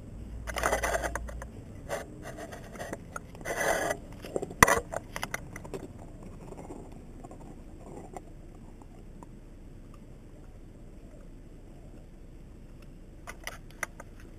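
German Shepherd puppy gnawing and licking a frozen ice block with a rubber ball set in it, the ice scraping and rubbing on stone paving in a few loud bursts over the first five seconds, with one sharp knock, then quieter.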